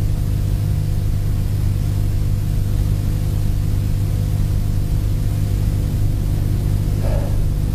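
Steady low electrical hum, a stack of even tones from about 50 Hz upward, under a layer of hiss.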